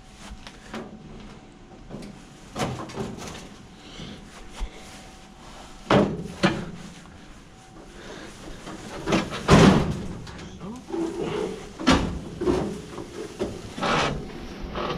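Irregular knocks and thumps of a heavy appliance on a dolly being carried and bumped through a doorway, the loudest knock about two-thirds of the way through.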